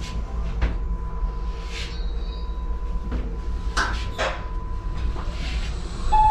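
Elevator car travelling between floors: a steady low rumble with a faint steady hum and a few light knocks and rattles. A short tone sounds near the end.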